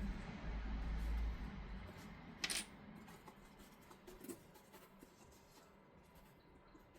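Hands handling a stiff X-Pac laminated fabric bag panel: a low handling rumble for the first two seconds, one sharp crinkle about two and a half seconds in, then a faint tick or two.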